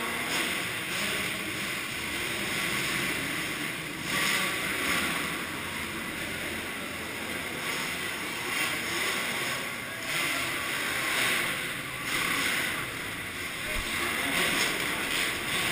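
Motocross bike engines running in an indoor motocross hall: a steady rushing drone that swells and dips every second or two.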